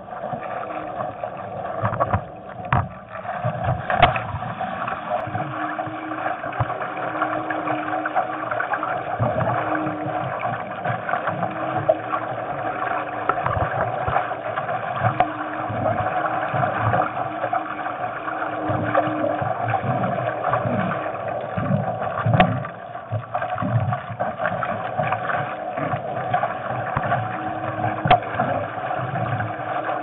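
Bladerider moth dinghy sailing: a steady rush and gurgle of water along the boat, with uneven low knocks against the hull and a low hum that comes and goes. A few sharp clicks stand out, about four seconds in, in the middle, and near the end.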